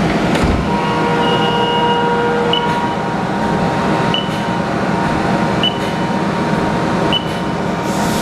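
Haas ST-30 CNC lathe running with coolant spraying inside the closed enclosure: a steady hiss and hum, with a steady whine that sets in about a second in. A short high chirp comes about every second and a half.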